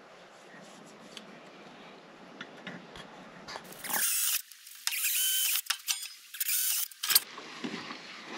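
Faint pencil scratching on plywood, then a cordless drill boring a hole through a plywood panel, running in about four short bursts with brief pauses between them.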